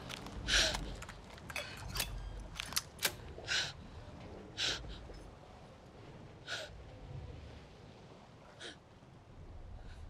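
A woman's short, sharp, breathy gasps and sniffs in distress, about eight of them, close together at first and then further apart. A steady low rumble of sea lies beneath.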